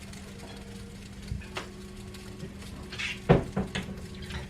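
Kitchen handling sounds: a few light clicks, then a louder knock about three seconds in followed by smaller ones, as of dishes or a cupboard, over a steady low hum.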